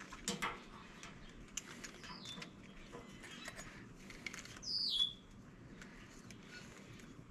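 A bird calling twice through an open garage door: short downward-sliding chirps, the second louder and longer about five seconds in. Light clicks of a fuel pump assembly being handled sound now and then, the most prominent just after the start.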